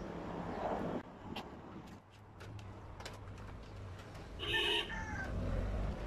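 Light clicks and knocks of hands handling a washing machine's plastic control panel and its wiring, with one short animal call about four and a half seconds in.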